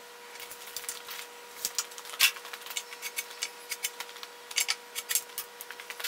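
Irregular light clicks, taps and scuffs of timber being handled and marked out with a tape measure, with boot footsteps on a concrete floor among them; one sharper knock about two seconds in.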